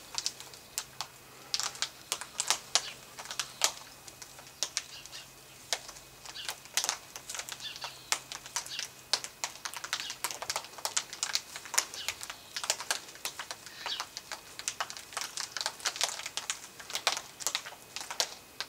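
Yellow-tailed black cockatoos feeding in a tree: a busy, irregular run of sharp cracking and snapping clicks as they chew and break up the plant material, a few clicks a second in clusters.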